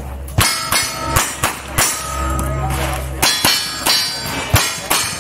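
A string of quick gunshots, about ten, in short bursts of two or three, with steel targets ringing after the hits.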